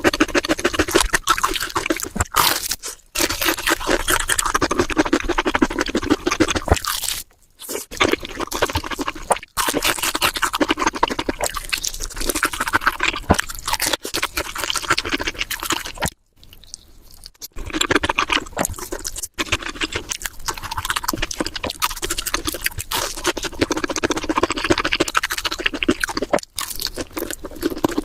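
Close-miked chewing of crispy fried food: a dense, crackling crunch broken by a few brief pauses, the longest about halfway through.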